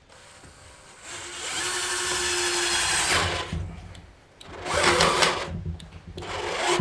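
Cheap cordless drill running in bursts while drilling: one run of about two seconds starting about a second in, then shorter bursts in the middle and near the end. The drill's motor is overheating and smoking, close to burning out.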